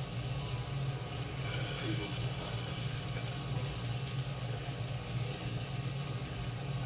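Popcorn machine running: a steady low hum under a sizzling hiss, which grows brighter about a second and a half in.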